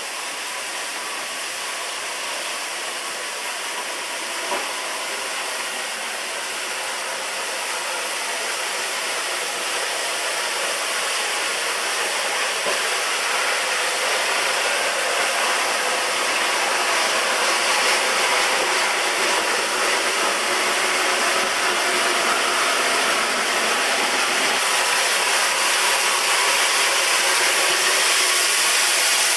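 Dry-mix gunite shot from a REED SOVA gunite machine's compressed-air nozzle: a steady hiss of air and sand-cement mortar blasting onto the concrete, slowly growing louder. A short tap sounds once, about four seconds in.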